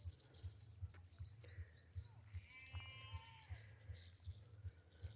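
A bird singing a quick run of about eight high, descending notes, followed about three seconds in by a short bleat from a farm animal.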